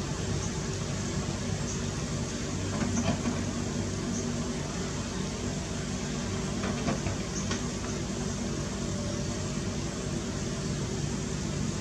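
Komatsu PC200 hydraulic excavator's six-cylinder diesel engine running steadily under digging load, with a couple of faint knocks partway through as the bucket works the riverbed mud.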